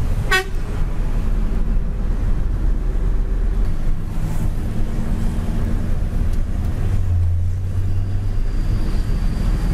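Mitsubishi Fuso self-loader truck's diesel engine running under way, heard from inside the cab as a steady low rumble with road noise. The engine note grows stronger about seven seconds in. A brief high blip comes right at the start.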